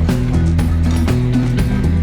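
Background music with a steady beat, bass and plucked strings.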